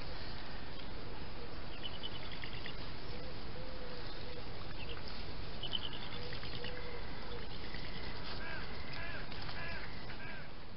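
Steady hiss with faint short animal calls: a few early on, then a run of them about every half second near the end as the sound fades out.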